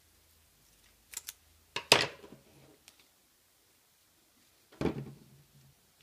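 Craft tools and construction paper handled on a tabletop: a few light clicks about a second in, then a sharp knock near two seconds and another knock near five seconds as things are set down.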